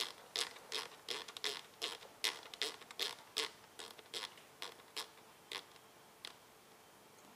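Rotary encoder knob on an electronic control box clicking as it is turned clockwise in repeated short twists to raise the displayed setting, about two to three clicks a second, slowing and stopping about six seconds in.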